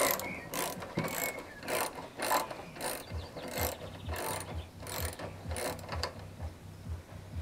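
Ratchet wrench clicking in repeated back-and-forth strokes, about two a second, while a nut is undone and counter-held on the scooter's engine mount; the clicking stops about six seconds in. A low, regular knocking runs under it in the second half.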